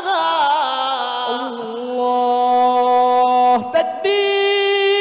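A man's solo voice in melodic Quran recitation. He draws out one long ornamented note that settles into a steady held tone, steps up to a higher held tone about four seconds in, and stops right at the end.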